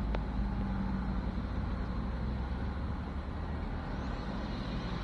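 Steady low rumble of an idling car engine.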